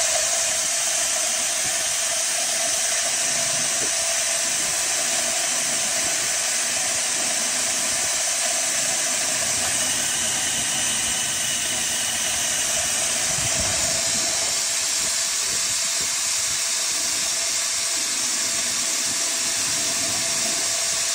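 A 10 hp cattle feed grinder running steadily while grinding feed: an even rushing noise with a constant mid-pitched tone beneath it.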